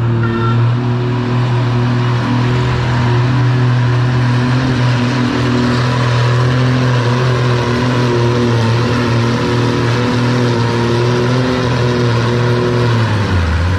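Antique farm tractor engine running steadily under load, holding an even pitch as it pulls a weight-transfer sled down the track. Near the end the engine note drops as the throttle comes back.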